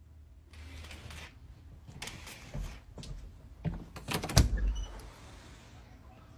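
A few scattered knocks and clicks, with the loudest a heavy thump about four and a half seconds in.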